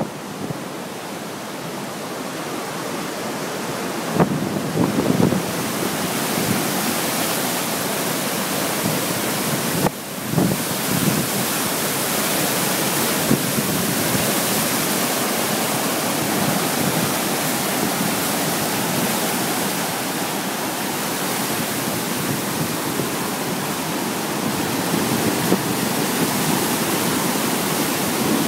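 Floodwater in a swollen river rushing steadily past a dam, with occasional gusts of wind on the microphone.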